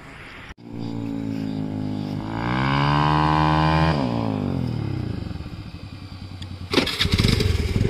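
Motorcycle with an aftermarket exhaust accelerating along the road, its engine note climbing in pitch and then falling away. A sudden louder burst of engine noise comes in near the end as it draws close.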